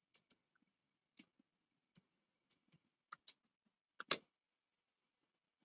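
Computer keyboard keystrokes, a dozen or so separate clicks at an uneven, unhurried pace as a username and password are typed, with a louder click about four seconds in.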